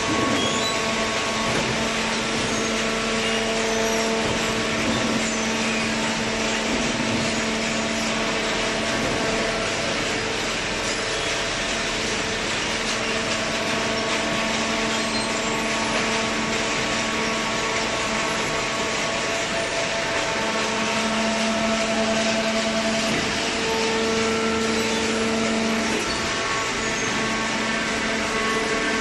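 Hydraulic cardboard baler's motor and pump running steadily, a continuous hum-whine over a hiss, swelling slightly in strength now and then.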